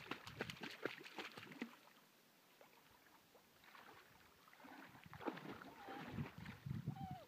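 Shallow water splashing and sloshing from wading, in two spells with a quieter gap between. A brief whine near the end.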